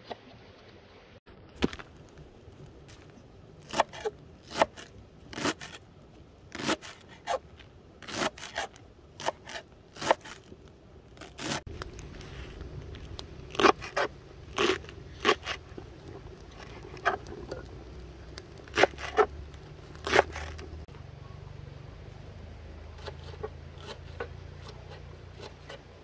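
Knife cutting fresh vegetables such as leeks: a series of irregular, crisp cuts, roughly one every half second to a second. A low steady rumble comes in about halfway through.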